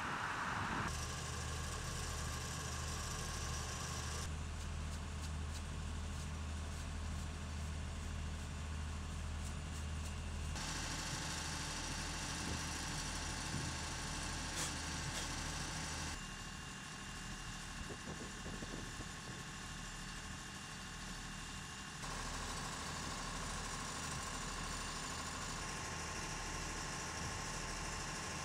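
Steady low machine hum like an idling engine. Its tone and level change abruptly about 1, 4, 11, 16 and 22 seconds in.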